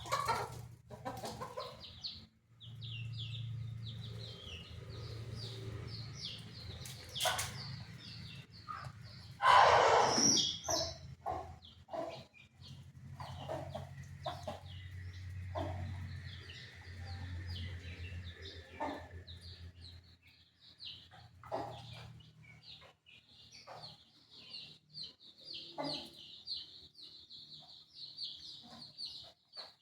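Chickens: a near-continuous stream of short, high chick peeps with occasional clucks and louder calls. A low steady hum runs underneath for much of it.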